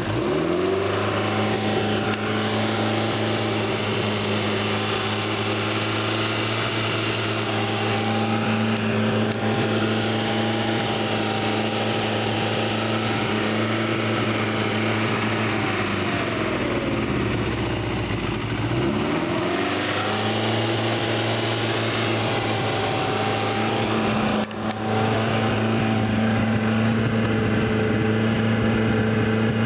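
MGB engine running steadily just after starting, its speed climbing as it catches in the first second. About halfway through the revs sag for a few seconds and then pick back up to the same steady speed.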